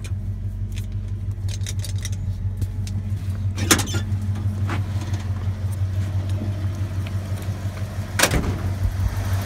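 The 5.0-litre V8 of a 1986 Ford F-150 idling steadily. Two sharp knocks sound over it, one about a third of the way in and a louder one near the end.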